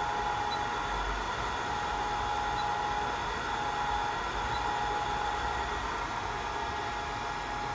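Automatic BGA IC mounting machine's hot-air heater blowing as it heats up: a steady airflow hiss with a constant faint whine.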